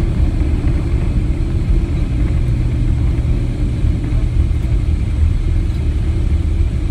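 Cabin noise of a Boeing 777-300ER rolling out on the runway after touchdown: a loud, steady low rumble of the engines and the wheels running over the runway.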